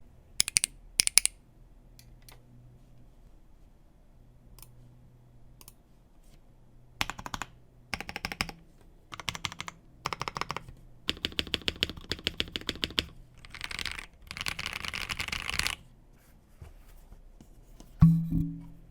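Mechanical keyboard typing on a KBD67 Lite R2 with stock KTT Sea Salt Lemon linear switches and GMK keycaps: a few scattered keystrokes, then several runs of fast typing. Near the end comes one louder, deeper thump with a short ring.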